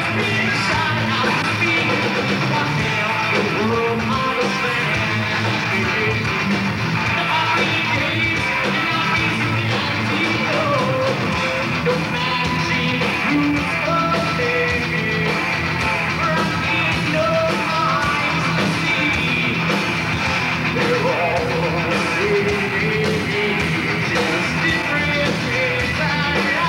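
Live rock band playing: electric guitars, bass and a drum kit, with a singer's vocals over them. It keeps going steadily, without a break.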